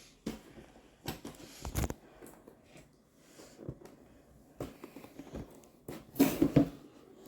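Scattered rustles and light knocks of a slime kit box being opened and its contents handled, with the loudest handling near the end.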